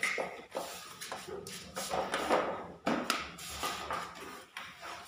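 Steel spatula scraping skim coat across a plastered wall in irregular strokes, with a few sharp clicks of the tool.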